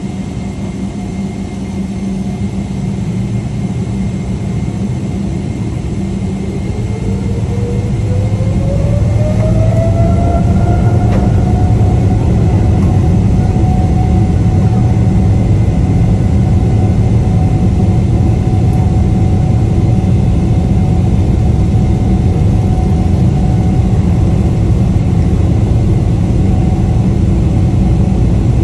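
Boeing 777-300ER's GE90-115B turbofans spooling up to takeoff thrust, heard from inside the cabin beside the engine. A whine rises in pitch over about four seconds and then holds steady as the sound grows louder, over a heavy low rumble of the takeoff roll.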